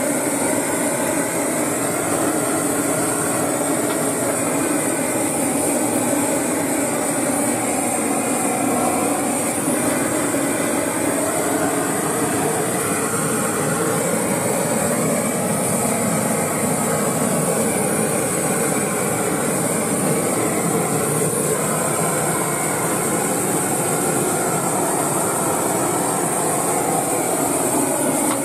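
Hose-fed gas burner torch burning with a steady rushing noise as its flame singes the skin and hair of hoofed animal legs.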